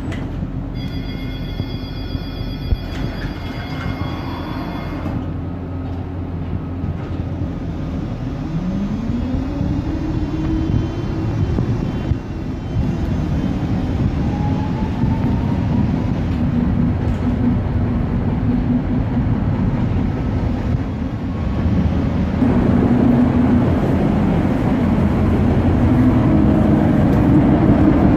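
Tatra T3M2-DVC tram: a steady electronic warning tone sounds for about four seconds as the doors close. Then the tram pulls away with a rising motor whine, and its running rumble grows louder near the end.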